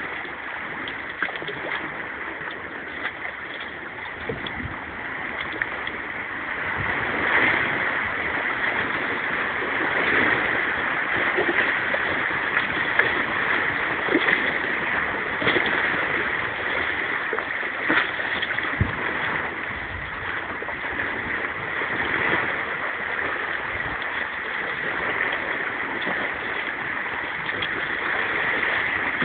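Small sea waves lapping and sloshing among shoreline rocks: a steady rush of water with occasional louder splashes.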